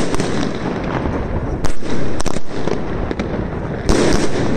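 Fireworks going off overhead: sharp bangs of bursting aerial shells over a continuous dense crackle and rumble of many other fireworks. The loudest bangs come a little past the middle, as a quick pair just after, and again near the end.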